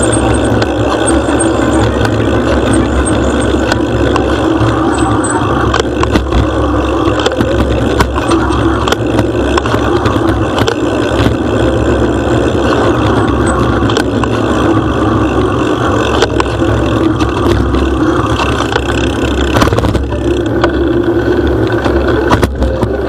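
Wind rumbling on the microphone of a bicycle-mounted camera while riding along a paved road, with road noise and scattered short knocks and rattles over bumps.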